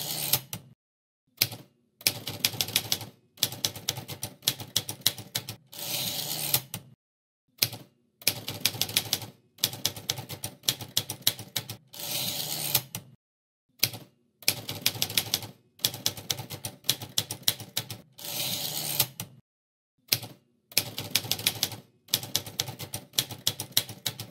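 Typewriter keys striking in quick runs of clicks, with short pauses between the runs.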